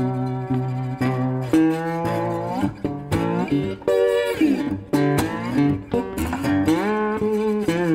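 Background music: plucked guitar, with one note sliding down and up in pitch about four seconds in.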